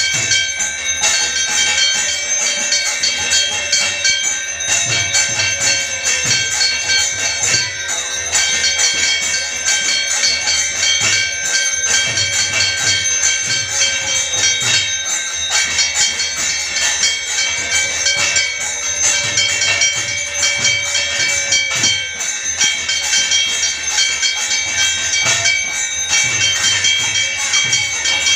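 Brass hand bell (ghanta) rung continuously during a temple arati, over quick low thumps of other temple percussion. A long held tone, several seconds at a time and sagging in pitch as it ends, sounds three times.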